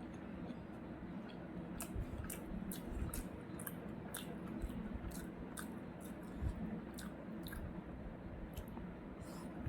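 A person chewing food close to the microphone, with wet smacking and irregular mouth clicks starting about two seconds in.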